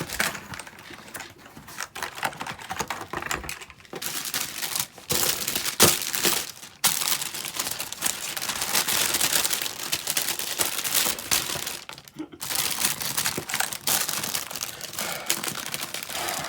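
Packaging crinkling and rustling as a keyboard is hurriedly packed back into its box, with a sharp knock about six seconds in.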